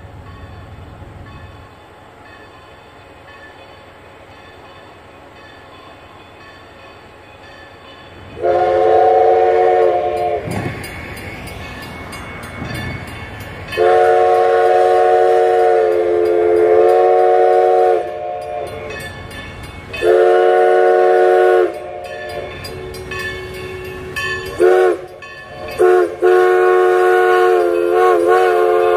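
Steam locomotive's whistle blowing for a grade crossing: a chord of several steady notes, sounded as three long blasts, two short toots and a last long blast that carries on.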